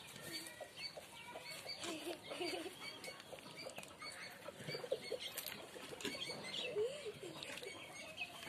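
Several chickens clucking quietly in short, scattered calls, with the light scurry of their feet.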